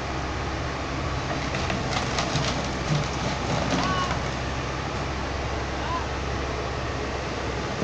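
L&T Komatsu wheeled excavator's diesel engine running steadily, with a few short chirps over it.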